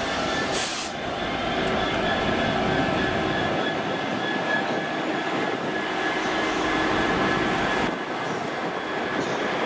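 Class 66 diesel-electric locomotive passing, its two-stroke V12 diesel running steadily and its wheels rumbling over the rails. There is a brief hiss just after the start.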